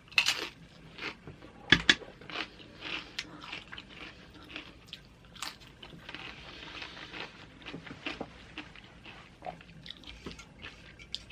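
Crunching bites and chewing of loaded nachos made with jalapeño Tostitos tortilla chips, close to the microphone. Two loud crunches come in the first two seconds, then many softer chewing crunches.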